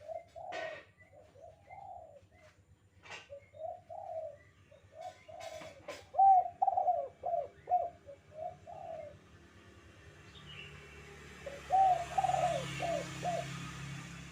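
Spotted dove (tekukur) cooing in repeated phrases of short, low coo notes, the 'kuk 2' call type. A few sharp clicks come in the first seconds, and a faint hiss with a low hum rises in the second half.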